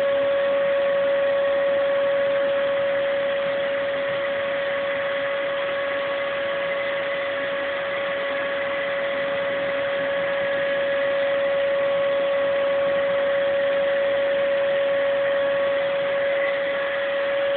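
A steady hum: one constant tone with fainter higher tones over an even hiss, unchanging throughout.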